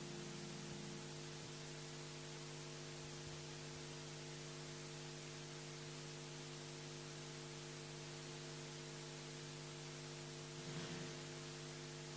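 Faint steady hum of several held low tones over a hiss, with a soft bump near the end.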